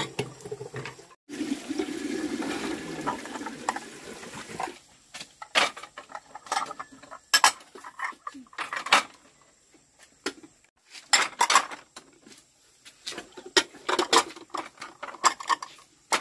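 Water splashing as ceramic bowls are rinsed in a stainless steel sink. About five seconds in it gives way to a run of sharp, ringing clinks as ceramic bowls are set and stacked on a wooden drying rack.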